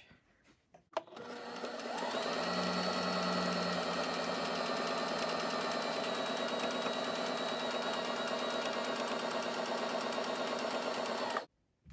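Sewing machine stitching a seam in fabric. After a click about a second in, it runs up to speed and holds a steady, fast needle rhythm, then stops abruptly near the end.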